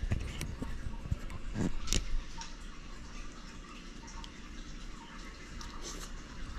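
Handling noise as a chest-mounted camera is shifted: a few soft knocks and small clicks in the first two seconds, then low rustling.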